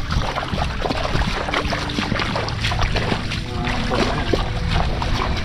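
Footsteps splashing and sloshing through shallow, muddy water as a person wades, a string of short splashes one after another.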